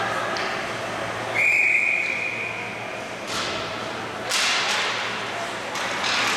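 Referee's whistle blown once, a single steady high tone lasting about a second and a half. It is followed by sharp clacks of hockey sticks on the ice and puck as play restarts from a faceoff.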